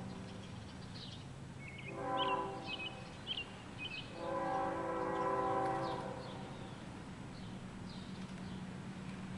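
Diesel locomotive air horn, heard at a distance, sounding a chord: a short blast about two seconds in, then a long blast for about two seconds. Together with the long blast just before, this is the end of the long-long-short-long grade-crossing signal. A low steady rumble runs underneath, with birds chirping.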